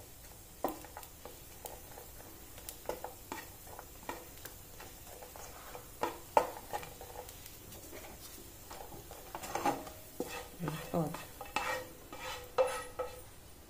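Wooden spatula stirring and scraping cashew pieces around a nonstick frying pan in ghee, with irregular knocks against the pan and light sizzling.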